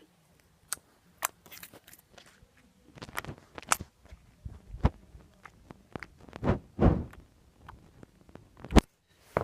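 Homemade slime being squished and stretched by hand, giving irregular sticky clicks, pops and squelches, with one sharp pop near the end.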